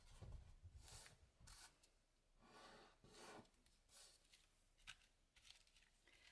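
Faint rubbing and rustling of hands smoothing masking tape down and pressing a sheet of card tags flat on a desk, with a few small ticks.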